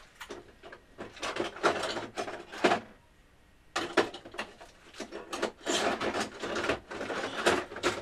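Handling noise as computer network cards and their packaging are moved about: irregular rustling and clicking in two stretches, with a short pause about three seconds in.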